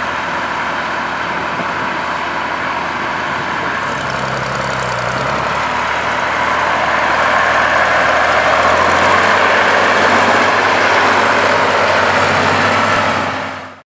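Case Comfort King tractor engine running as the tractor drives along, getting louder about halfway through as it comes close and passes. The sound cuts off suddenly at the very end.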